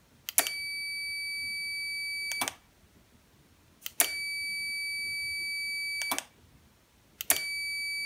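Digital multimeter's continuity beeper sounding a steady high tone three times, about two seconds each, as the remote-switched 200 A relay closes and opens; the beep signals that the relay's contacts are closed. A sharp click marks each beep's start and end.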